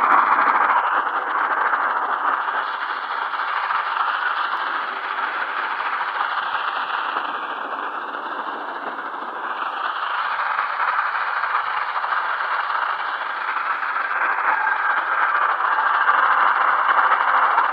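Portable medium-wave radio receiver tuned to a weak distant AM station: a steady hiss of static that swells and sinks slowly with fading, with faint wavering whistles above it.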